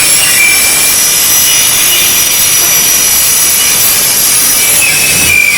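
Double-head aluminium cutting saw with both blades cutting through an aluminium window profile: a loud, steady, high-pitched whine and screech of the saw blades in the metal, which drops away near the end as the cut finishes.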